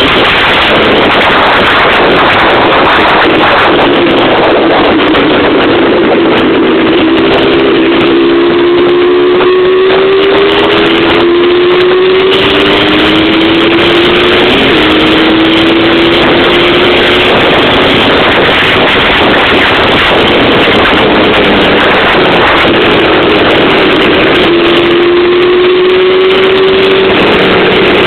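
Yamaha Blaster 200 ATV's two-stroke single-cylinder engine with a Toomey Racing expansion-chamber exhaust, ridden at speed. The engine note repeatedly climbs in pitch and drops back, as it pulls through the gears. Heavy wind noise on the microphone runs under it.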